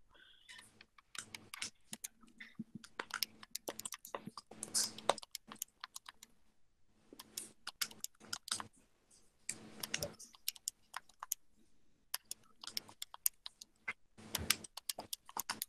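Buttons on a handheld calculator being pressed: irregular runs of short clicks with brief pauses, as data values are keyed in.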